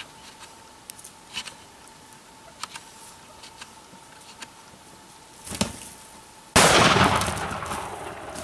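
A single shotgun shot about six and a half seconds in, sudden and loud, dying away over a second or so. Before it come a few faint clicks and a soft thump.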